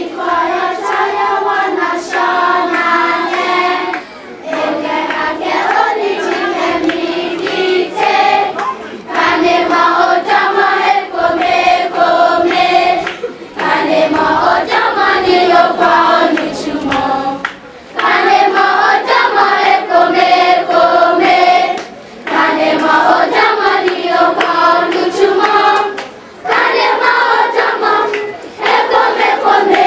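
A choir singing a song together, in phrases of about four seconds with short breaks for breath between them.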